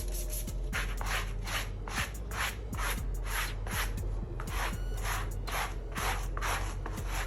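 Rhythmic back-and-forth scrubbing or rubbing strokes on fabric, about two a second, beginning about a second in, over a steady low hum.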